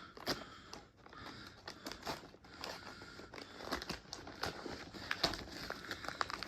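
A mailed package being opened by hand: packaging crinkling and tearing, with irregular crackles and rustles throughout.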